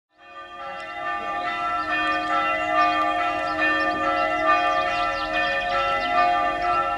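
Church bells ringing, several bells struck quickly over one another so their tones overlap, fading in during the first second or two.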